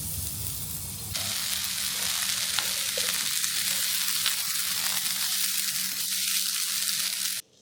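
Burgers and sausages sizzling on a charcoal barbecue grill: a steady sizzle that gets louder about a second in and cuts off suddenly just before the end.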